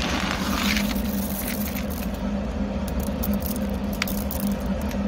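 A machine runs with a steady hum and low rumble. Over it come a dry rattling and scraping and scattered small clicks as green coffee beans are handled.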